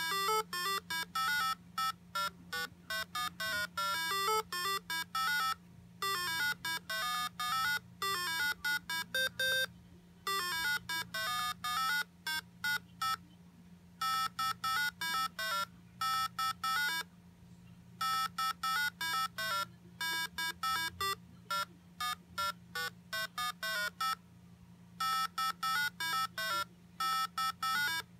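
A tune of short, quick beeping notes in buzzy square-wave tones, played from MML code by an IchigoJam computer through a small speaker. It comes in phrases broken by brief pauses, over a steady low hum.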